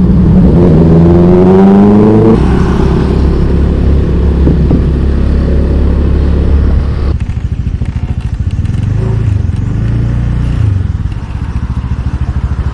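Honda scooter's small engine rising in pitch as it accelerates, then a steady loud rumble of engine and wind while riding. From about seven seconds in it is quieter and pulsing as the scooter slows.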